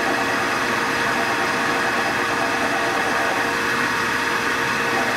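Sakai ML360 mini metal lathe running steadily with its chuck spinning: an even motor and drive hum with a constant whine.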